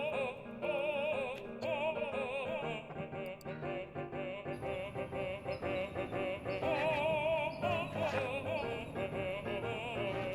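Background music: a vibrato singing voice over an accompaniment.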